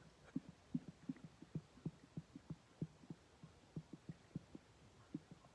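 Faint, soft low thumps from a person's body, in a steady rhythm of about three a second.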